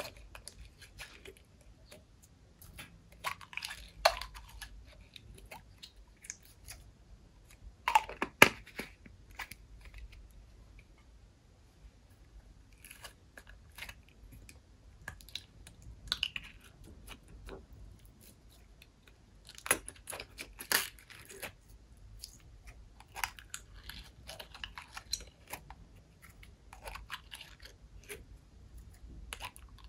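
Slime being squeezed and mixed by hand: irregular wet crackling and clicking in short clusters every few seconds, the loudest about eight seconds in and again about twenty seconds in.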